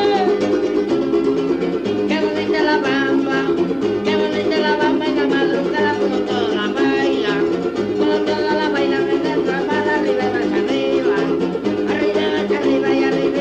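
Mexican folk music playing: a voice singing over plucked string instruments.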